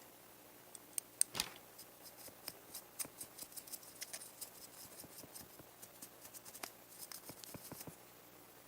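Small hand tools at work on a model car: an irregular run of quick, light clicks and snips, loudest just after a second in, stopping near the end.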